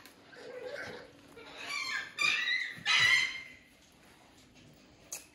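A pet animal gives two short high-pitched cries about two and three seconds in, the second the louder.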